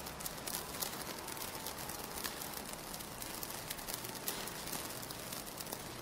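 Fire crackling: a steady soft hiss with many small scattered crackles and pops.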